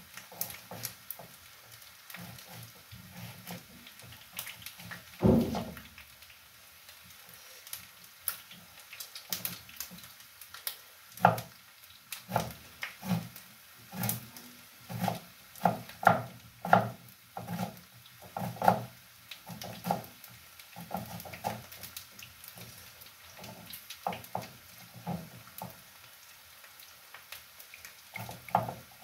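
Small knife slicing a red onion held in the hand: a run of short, crisp cuts and clicks, busiest in the middle, with one louder knock about five seconds in.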